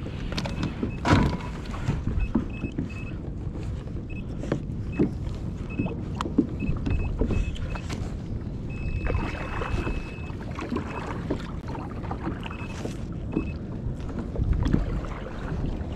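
Fishing kayak on the sea: water splashing and lapping against the hull, with scattered knocks of gear being handled on board. A faint series of short high beeps runs through it, one held longer about nine seconds in.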